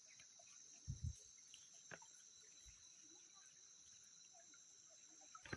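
Faint, steady high-pitched insect chorus from the streamside, with a soft low thump about a second in and a sharp click near two seconds.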